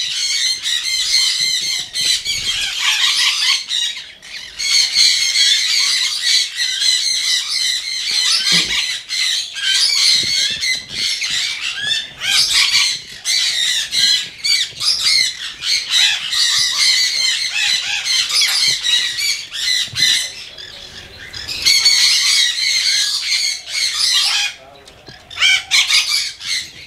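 Parrots squawking: harsh, repeated calls almost without pause, with brief lulls about four seconds in, around twenty seconds and near the end.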